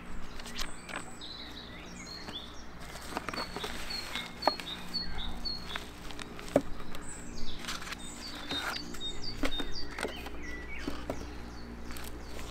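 Small birds chirping repeatedly, short high notes scattered throughout. Under them, the rustle and a few light knocks of a cardboard box and a nylon bag being handled.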